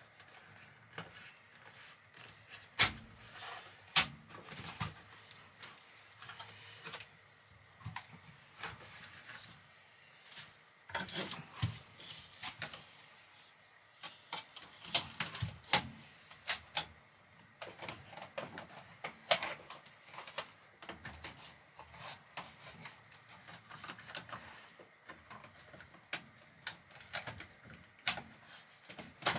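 Plastic slotted cable-trunking covers being pressed and clipped onto the wiring duct: irregular sharp plastic clicks, snaps and light knocks, with handling rustle in between.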